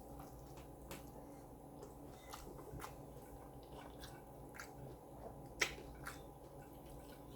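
Close-miked chewing of a taco: soft wet mouth clicks and small crunches at irregular moments, with one sharper click a little past halfway.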